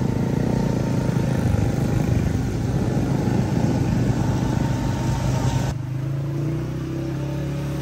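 Motorcycle engine running while riding on a rain-soaked road, with the rush of wind and wet tyres over it. About six seconds in, the hiss drops away and a steadier engine hum remains.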